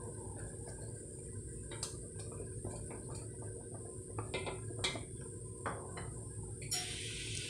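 A wooden spoon stirring simmering broth in a copper pot, knocking against the pot several times over a steady low rumble; a steady hiss sets in near the end.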